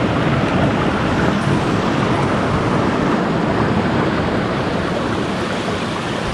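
Creek water rushing over and between boulders: a steady rushing noise with no breaks.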